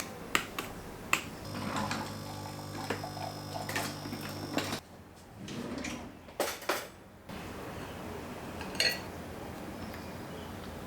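Kitchen handling sounds: utensils and dishes clinking and tapping a few times, with a steady electric hum that starts about a second and a half in and cuts off suddenly about three seconds later.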